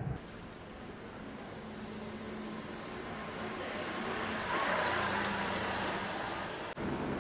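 A road vehicle passing: a steady rush of noise that swells to a peak about two-thirds of the way through and then cuts off abruptly near the end.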